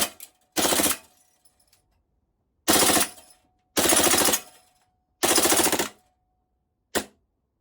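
Action Army AAP01C gas-blowback airsoft pistol firing on full auto in short bursts: four bursts of rapid shots, each about half a second to under a second long, then a very short burst near the end.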